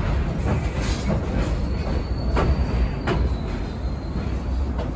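New York City subway train on the 6 line slowing into a station: a steady rumble with its wheels clacking over rail joints, the clacks coming further and further apart, and a faint high wheel or brake squeal about halfway through.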